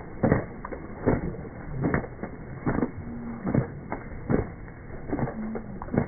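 Slowed-down, deep-pitched sound of Weimaraners splashing and moving at the water's edge in slow-motion playback: a regular whooshing pulse a little more often than once a second, with a few short, low drawn-out whines.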